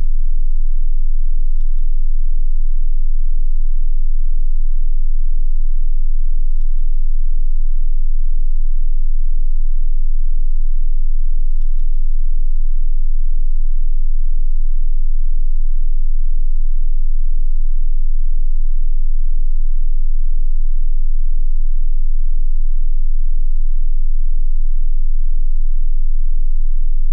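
A loud, steady, deep synthesized drone: one very low tone held without change. Three faint short noises come about five seconds apart in the first half.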